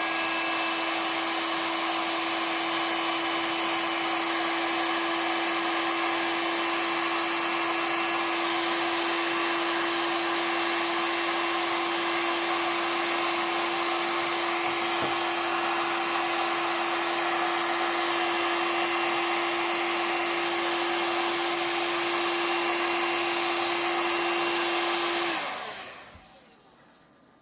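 Heat gun blowing steadily, with a constant motor hum over the rush of air, as it heats the edge of a phone screen to loosen the frame. It is switched off near the end and winds down quickly.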